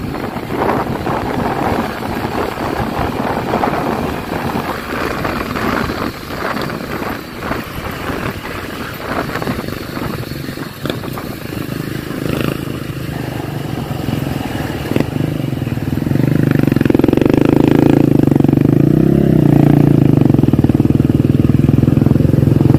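Motorcycle ride heard from the saddle: rushing air and buffeting on the microphone over the engine for most of it. About two-thirds of the way in, as the bike slows behind traffic, a steady engine hum becomes louder and takes over, dipping briefly in pitch and coming back.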